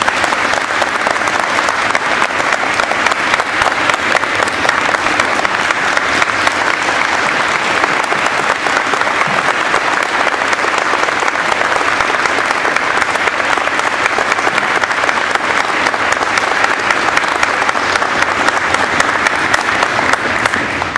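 Audience applauding, a dense steady clatter of many hands clapping that starts all at once and dies away near the end.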